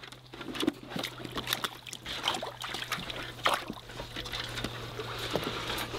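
Weimaraner puppies paddling and splashing in the shallow water of a paddling pool while they eat from a metal food dish: irregular small splashes, wet smacks and clicks.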